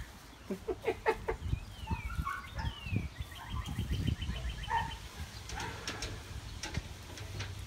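Birds chirping, with a quick trill of evenly spaced ticks about halfway through, over knocking and rustling as a husky puppy tugs and drags a stick through the grass.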